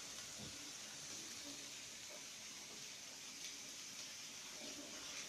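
Meat and onion frying in a pan, a steady soft sizzle, with a light knock about half a second in.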